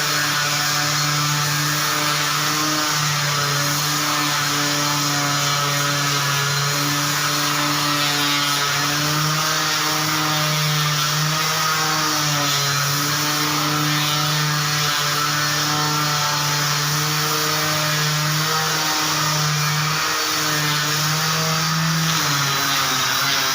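Floor sanding machine running steadily on a wood parquet floor, its motor hum dipping slightly in pitch now and then as it takes load, over a steady abrasive hiss.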